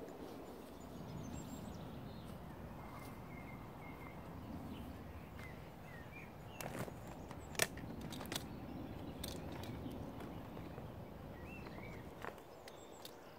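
Outdoor ambience: a steady low background rumble with scattered short bird chirps and several sharp clicks.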